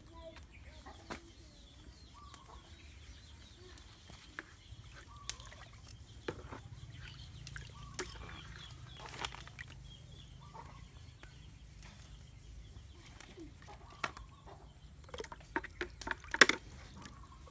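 Chickens clucking on and off, with sharp knocks of a knife striking a wooden chopping block as a snake is cut up; a quick run of knocks near the end is the loudest sound.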